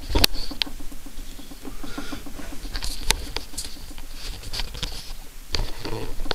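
Light, irregular clicking and scratching of hands tightening the drive-engaging knob on a Singer 413 sewing machine's handwheel, with a few sharper clicks at the start.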